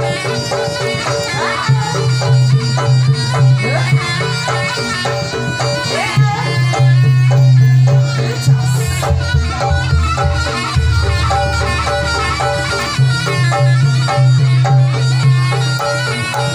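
Live Javanese jaranan music: a reedy slompret (shawm) carrying the melody over drums and gongs.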